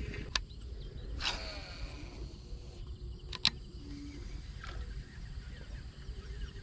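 Outdoor ambience: insects chirping over a steady low wind rumble, broken by two sharp clicks and a short swish about a second in.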